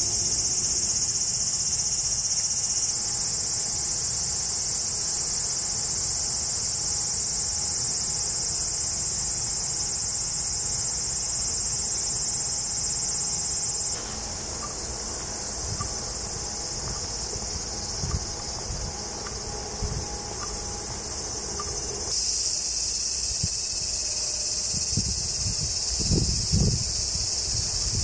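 Chorus of Japanese summer cicadas: a steady, high-pitched drone that changes abruptly in tone and loudness three times.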